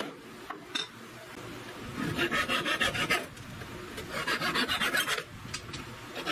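A Japanese flush-cut saw, laid flat on the box side, trimming protruding wooden pins flush, in two quick bursts of fast rasping strokes of about eight a second. A few light hammer taps come in the first second.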